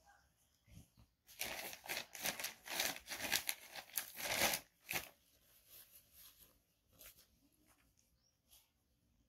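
Crinkly white sheet being crumpled and rustled by hand, a dense crackling rustle for about three seconds, then a few faint rustles.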